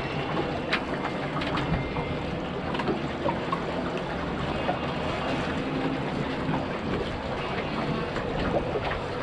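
Steady noise of a small boat sitting on the sea: water against the hull and wind on the microphone, with scattered light clicks and knocks.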